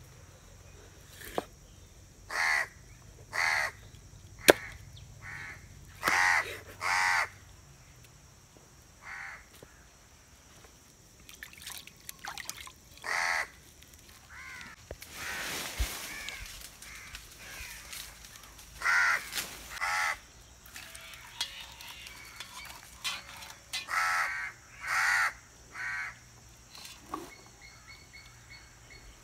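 Crows cawing over and over, in short runs of two or three calls, with a few sharp knocks of a knife chopping through fish on a wooden board. The loudest knock comes about four and a half seconds in.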